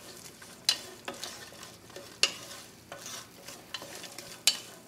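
Wooden spoon stirring cut green beans in hot oil in an enamel pot, knocking and scraping against the pot with sharp clacks about once a second over a faint sizzle.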